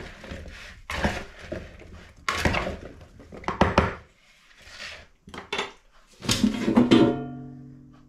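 Background music on a plucked guitar, with a note ringing out and fading near the end, over the clatter of chopped vegetables being tossed by hand in a ceramic bowl.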